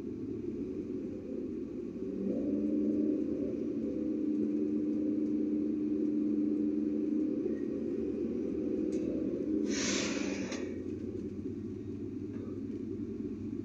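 Engine and road rumble of a moving vehicle heard from inside the cabin, with a steady engine drone from about two seconds in that fades after eight. A short hiss about ten seconds in.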